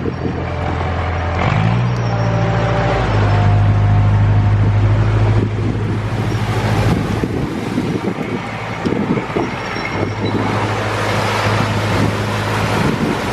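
Narrowboat's diesel engine running at low revs, its note stepping up and down as the throttle is worked for slow, tight manoeuvring: the revs rise a couple of seconds in, ease off about halfway, and pick up again near the end.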